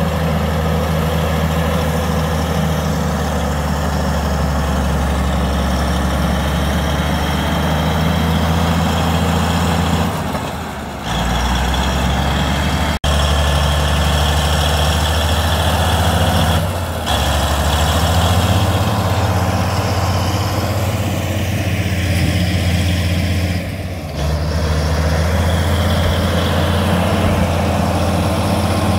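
Heavy diesel engine of a snow-clearing earthmoving machine running steadily. Its low note dips and picks up again a few times, about ten seconds in, around seventeen seconds and near twenty-four seconds.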